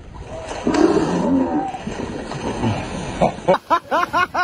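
Seals calling with low, throaty barks and growls, followed near the end by a quick run of short, higher rising-and-falling calls.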